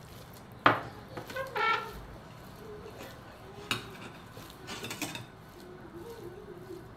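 Steel serving spoon clinking against a steel pot and plate as dal is ladled out. A sharp clink about a second in is the loudest, followed by a few lighter clinks.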